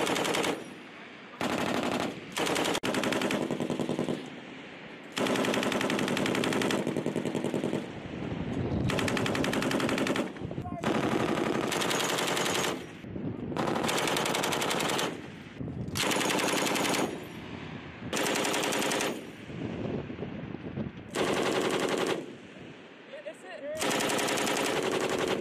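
Belt-fed M240B 7.62 mm machine gun firing a series of about ten bursts, each a second or two long, with short pauses between.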